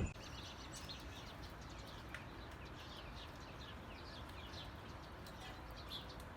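Faint chirping of small birds: many short, quick chirps scattered throughout, over a low steady background hiss.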